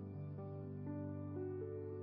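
Soft background music: sustained, gently changing chords in a calm, new-age style.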